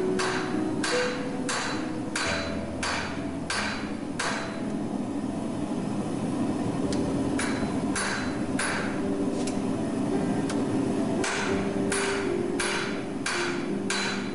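Hand hammer striking a red-hot high-carbon railroad spike on an anvil, drawing it out into a knife blade. The blows come about two a second in three runs, with pauses about four seconds in and again around nine seconds in, over a steady low hum.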